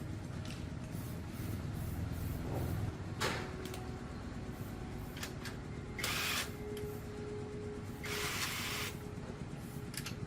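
Workshop handling sounds: a low steady hum with scattered clicks and knocks, a faint steady tone from about a third of the way in, and two short bursts of hiss about six and eight seconds in.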